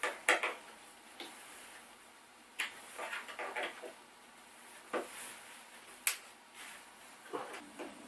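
Scattered knocks and clunks of wooden parts being handled, moved or set down. There are short sharp ones and a few quick clusters of two or three, the sharpest about six seconds in.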